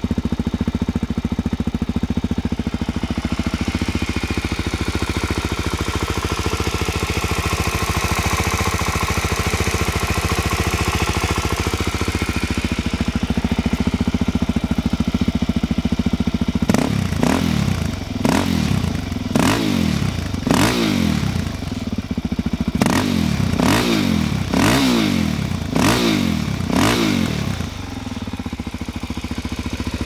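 A 2008 Suzuki DR-Z400SM's single-cylinder four-stroke engine idles steadily through a Yoshimura RS2 exhaust. A little past halfway the throttle is blipped in a string of about eight quick revs, each rising and falling, and the engine then settles back to idle.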